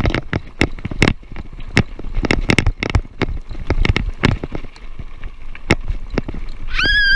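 Specialized Riprock 20 kids' mountain bike rattling over a rough gravel trail: a fast, irregular run of sharp knocks and clicks over a rumble. Near the end a steady high-pitched squeal sets in.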